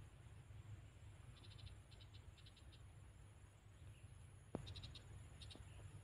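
Near silence: faint outdoor ambience with a low rumble and a faint steady high hum, through which a small animal gives several short chirps, each a quick run of four or five clicks. A single knock about four and a half seconds in is the loudest sound.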